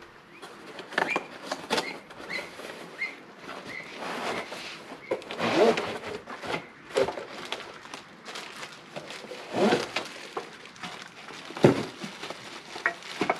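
Cardboard box and plastic wrapping rustling and scraping, with irregular knocks and clunks as a cantilever umbrella's pole sections are pulled from a tall box and set down; the loudest knocks come about halfway through and again near the end.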